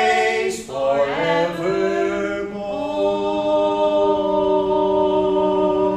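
A man and a woman singing a cappella as a duet, closing a gospel hymn on its last word, "forevermore", and ending on a long held note.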